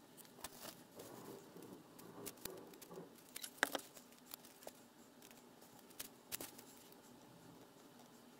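Faint handling noises of a polymer clay sculpture being worked by hand: scattered small clicks and taps with a low rustle of the paper lining the tray, the sharpest click about three and a half seconds in.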